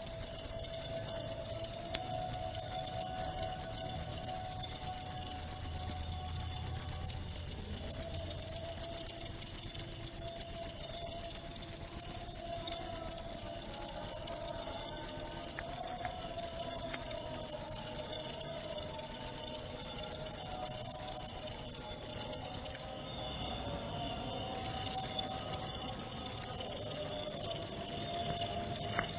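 Cricket (jangkrik) song: a rapid, high-pitched, pulsing trill that runs on without a break, stopping for about a second and a half near the end before it resumes.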